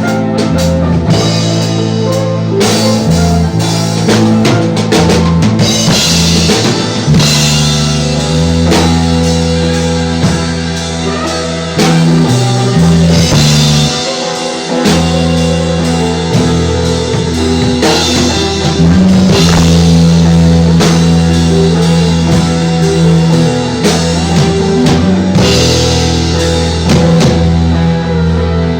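Instrumental reggae jam played on drum kit and guitar over a steady low bass line.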